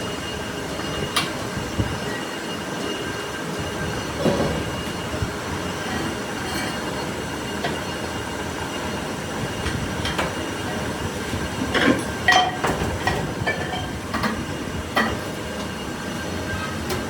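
A machine running steadily with a thin high whine over a noisy hum, with scattered metallic clinks and knocks, the loudest ones in a cluster about twelve seconds in.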